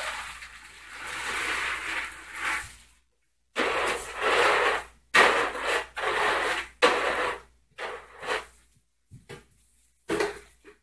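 Dry dog kibble spilling from a plastic container onto a hard floor and being scraped and spread with the container's base, in a series of rasping strokes about a second long with short pauses between.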